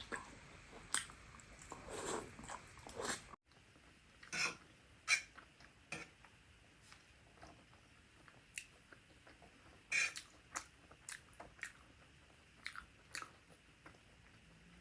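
A person chewing a meal of black bean noodles and smoked sausages close to the microphone: soft, irregular smacks and clicks of the mouth, a few a second. The sound drops out briefly about three and a half seconds in.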